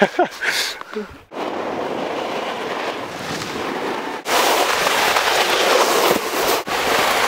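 Snowboard sliding over snow while riding, with wind on the microphone: a steady rushing noise that gets louder about four seconds in and breaks off briefly twice. A short voice sound at the very start.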